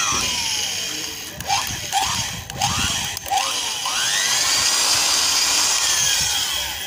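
Electric hand drill with a 6 mm bit drilling out a broken steel bolt in a motorcycle engine's aluminium cylinder head. The motor whines up and down in four short trigger bursts, then runs for about three seconds and winds down near the end.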